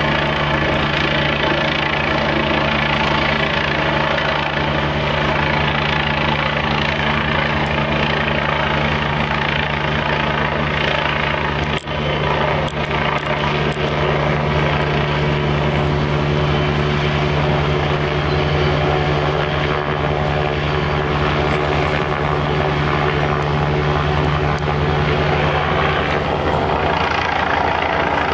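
Police helicopter flying very low overhead, its rotor and engine noise loud and steady, with a brief dip in level about twelve seconds in.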